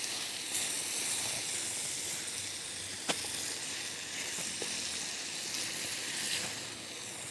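Onion, tomato, garlic and green-chilli masala sizzling in desi ghee in a frying pan over a wood fire, stirred with a wooden spoon. A steady frying hiss, with one light click about three seconds in.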